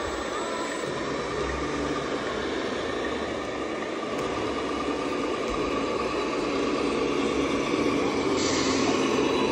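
Radio-controlled model trucks running on the layout, giving a steady engine-like drone, with a short hiss about eight and a half seconds in.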